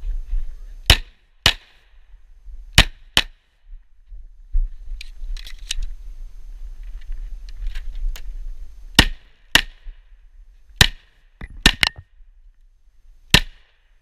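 Semi-automatic pistol fired in quick pairs and singles during a timed stage: four shots in the first few seconds, a pause of about five seconds with a low rumble and faint clicks, then about seven more shots in the last five seconds.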